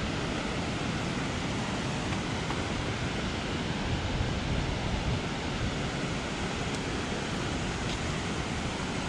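Steady rushing noise with no distinct events, the sound of wind or moving water.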